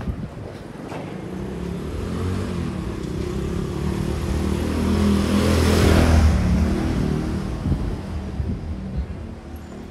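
Motorbike engine approaching and passing close by: it grows steadily louder, is loudest about six seconds in, then fades as it moves away.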